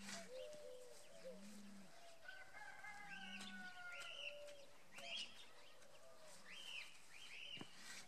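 Faint birdsong of repeated short chirps, with a rooster crowing once in a long, falling call about three seconds in.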